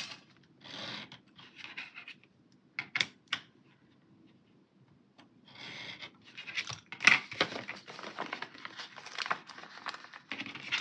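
Pen-style craft knife cutting paper along a metal straightedge: short scratchy strokes in several runs, with a few sharp clicks and the rustle of paper being handled.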